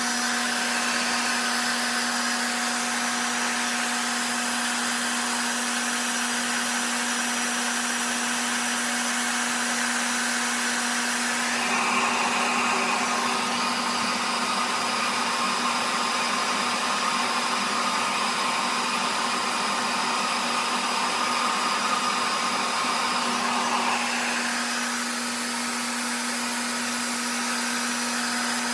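RevAir reverse-air blow dryer running steadily with a constant hum and whine, its suction-and-airflow noise. For about twelve seconds in the middle a higher rushing sound joins in, then falls away again.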